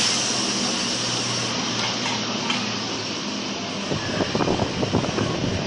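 Tourist mini road train running through town, heard from on board: a steady engine hum and rolling noise, with a hiss fading away at the start. From about four seconds in, irregular rattling joins in.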